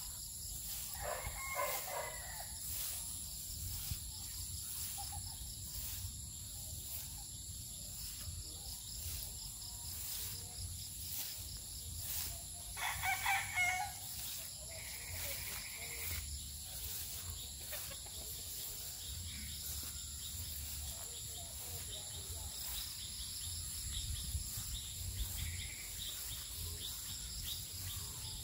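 A rooster crowing twice: a short crow about a second in and a louder, longer one around halfway through, over a steady high-pitched insect chorus.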